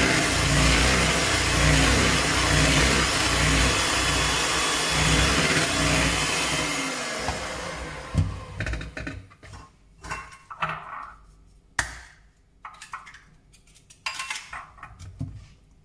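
Kenwood electric hand mixer running steadily, its beaters whirring through butter, sugar and egg in a plastic bowl, then winding down about seven or eight seconds in. After it stops come scattered short knocks and clicks.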